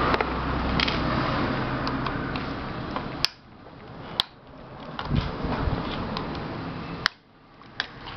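Small metal hex key clicking against the plastic housing of an electric steam iron being pried and unscrewed apart. There are a few isolated sharp clicks, the loudest about three seconds in and again about seven seconds in, over steady background noise.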